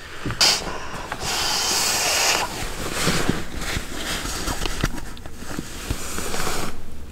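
Fabric rustling and rubbing as a pillow and a sleeping bag are handled and shifted about, with a few light knocks in between.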